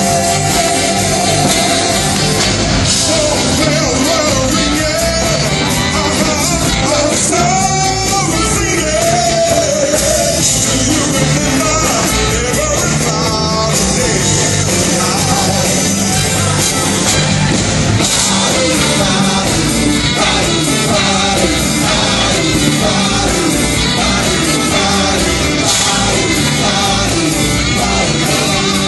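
Live rock band playing with a section of violins, a singer's voice carried over the full, steady band sound.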